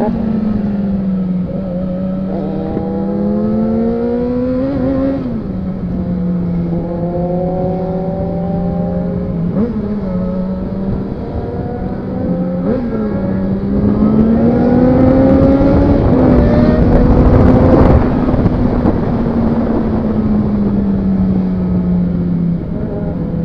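Inline-four motorcycle engine with a loud aftermarket exhaust, running under way. It holds a steady note with a sharp drop in pitch about five seconds in, quick throttle blips twice, and a louder, higher swell about two-thirds of the way through before settling back.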